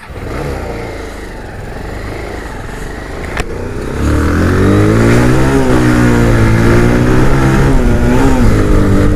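Motorcycle pulling away with wind rushing over the microphone; a sharp click about three and a half seconds in, then the engine grows much louder, its pitch rising and dipping as it accelerates.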